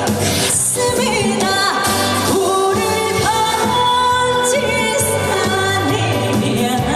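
A female singer singing a trot song live over an amplified backing track, with long held notes.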